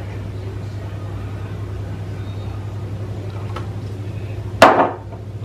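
A steady low hum throughout, with a few faint taps and one louder sharp knock about four and a half seconds in, as a paprika jar is shaken over a bowl of vegetables.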